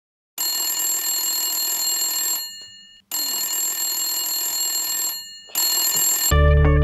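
An electronic ring tone sounding in two bursts of about two seconds each with short gaps, then briefly a third time before it cuts off as a hand reaches for it. Guitar music starts near the end.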